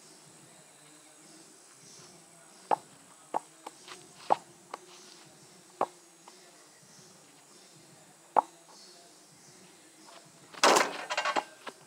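Basketball play: about six scattered sharp knocks of the ball bouncing, then a loud rattling clatter lasting under a second near the end.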